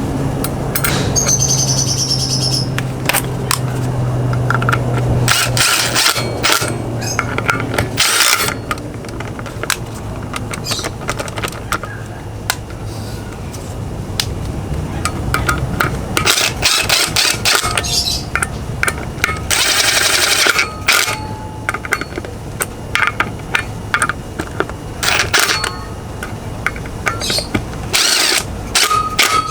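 Metal parts and hand tools clicking and clinking as a tone wheel is fitted to a scooter wheel, with a few short bursts of scraping or rushing noise, the longest about two-thirds of the way through.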